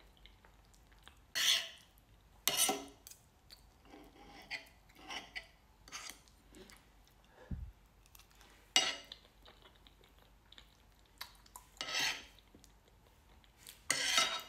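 A metal knife and fork scraping and clinking on a plate while a cheesy baked potato with beans is cut up, in about five short, loud scrapes. Quieter chewing comes between them.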